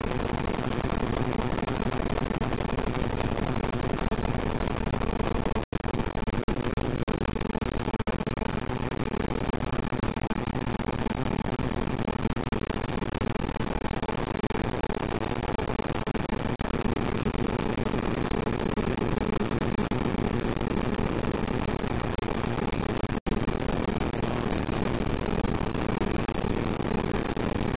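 Loop playback of a few milliseconds of audio repeated over and over in a digital audio workstation, turning into a steady, dense buzzing noise with faint steady tones inside it. It cuts out for an instant twice.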